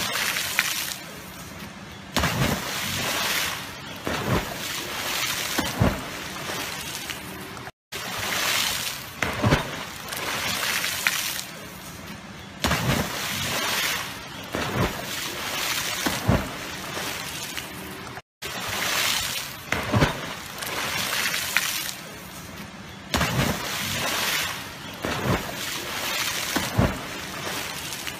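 Dogs diving one after another into a river, hitting the water with sudden splashes amid continuous sloshing and spraying water. The sound drops out completely twice for a moment.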